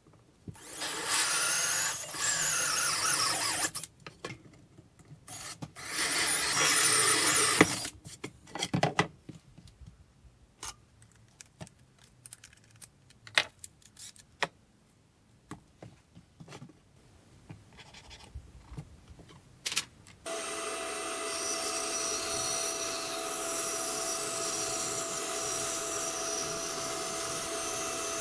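A power saw cutting plywood in two loud spells of about three and two seconds, followed by scattered knocks and clicks as the wood is handled. Then, about twenty seconds in, a motor starts and runs steadily with a constant whine.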